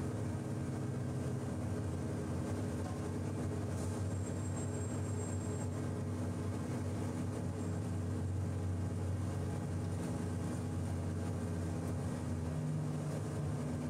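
Heavy grab rig's engine running with a steady low drone while it winches a cable-hung hydraulic clamshell grab up out of a slurry trench.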